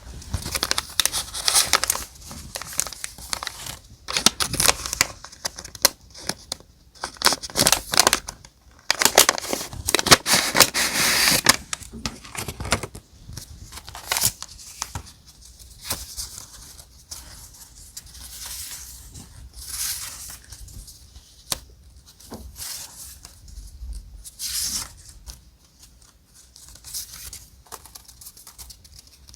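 Paper being handled while a journal is decorated with die-cut pieces: close-up rustling, crinkling and tearing of paper in quick irregular bursts, busiest in the first twelve seconds and sparser after.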